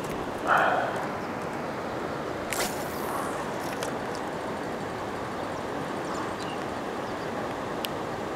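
Steady wind and lapping-water noise on the microphone, with a short falling squeak about half a second in and a quick swish about two and a half seconds in, as a fishing rod is cast and line flies off the spinning reel.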